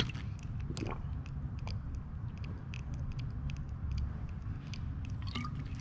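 Scattered light clicks and ticks of car parts and tools being handled, over a steady low rumble, with one sharper click at the start.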